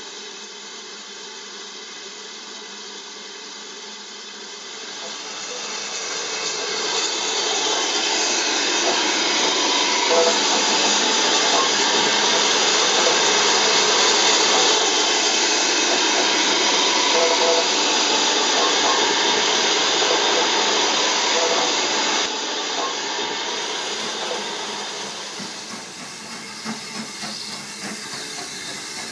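BR Standard Class 9F steam locomotive letting off steam: a loud, steady hiss that builds over a few seconds, holds, and eases off near the end.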